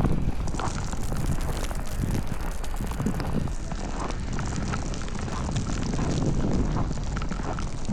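Snowstorm wind buffeting the microphone as a steady low rumble, with scattered faint clicks and crunches over it.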